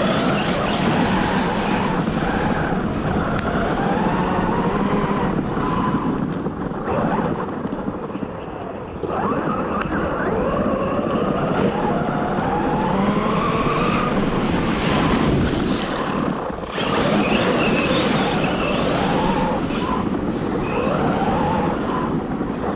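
ARRMA Talion 6S RC car being driven hard, its brushless motor whining up and down in pitch with the throttle over a steady rush of drivetrain and tyre noise, with brief let-offs.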